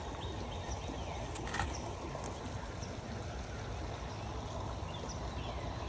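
Small stream running over rocks, a steady wash of trickling water, with one brief knock about a second and a half in.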